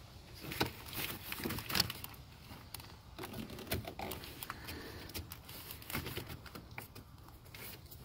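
Hands working plastic wiring connectors and corrugated wire loom: a string of irregular clicks and rustles, loudest about half a second and nearly two seconds in, as a connector is pushed back into place.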